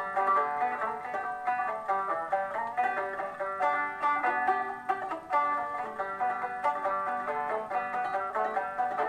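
Solo banjo playing a tune of quick plucked notes in a steady, even rhythm.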